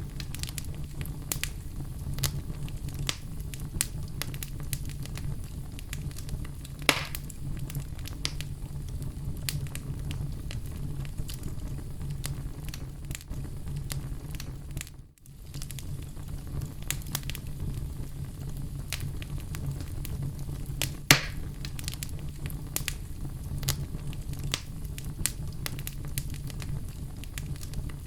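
Oak logs burning in a fireplace: a steady low rush of flame with constant crackling and sharp pops, two louder pops standing out, one about a quarter of the way in and one about three quarters in.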